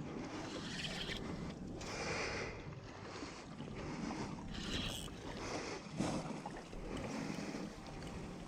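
Water sloshing and slapping against the hull of a drifting fishing boat, swelling and fading every second or two.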